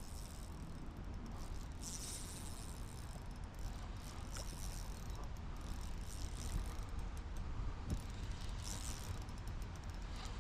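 Fishing reel working while a hooked fish is fought, giving several bursts of high clicking and whirring over a steady low rumble.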